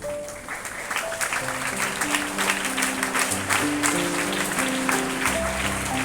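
Audience applauding steadily, over background instrumental music with held keyboard-like notes.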